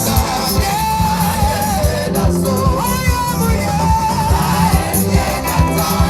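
Live praise music: a sung melody over a band with a steady, driving beat.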